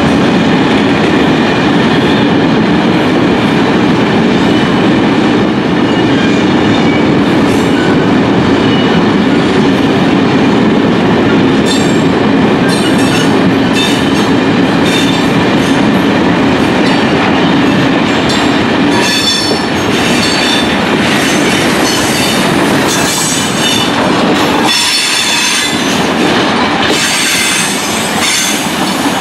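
A long freight train of hopper wagons rolling past close by: a loud, steady rumble of steel wheels on the rails. From about halfway through, high wheel squeals come and go over the rumble.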